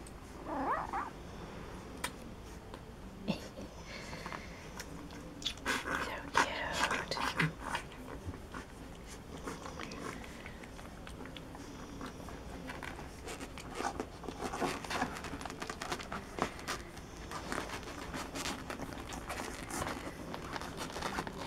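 Two-week-old Alapaha Blue Blood Bulldog puppies nursing from their mother: scattered suckling and smacking clicks, with a brief rising squeak about half a second in and a louder stretch of squirming and rustling around six to seven seconds in.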